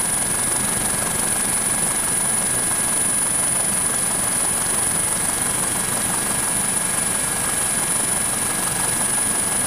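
Helicopter cabin noise: a steady dense rush of engine and rotors, with a high steady whine over it.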